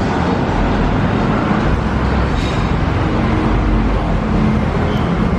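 Steady, loud vehicle and road noise with a low rumble, like a motor vehicle in motion.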